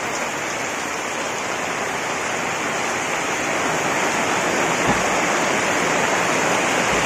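Steady rain falling, a little louder in the second half, with a soft low thump about five seconds in.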